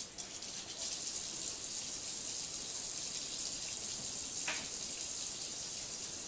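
Kitchen faucet running steadily into the sink while hands are washed under the stream.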